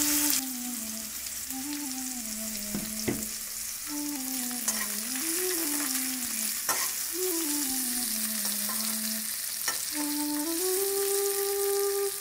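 Sliced onions and curry leaves sizzling in hot oil in a wok, stirred with a metal spoon that scrapes and taps against the pan a few times. A soft flute-like melody plays over it, moving up and down in steps.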